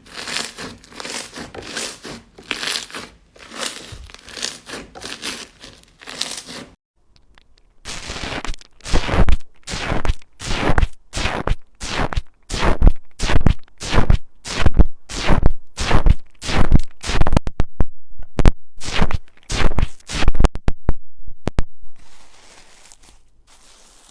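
Slime being pressed and squeezed by hand, crackling and crunching with each press. First come quick repeated strokes, then after a short pause a louder, steady run of presses about one and a half a second, easing off near the end.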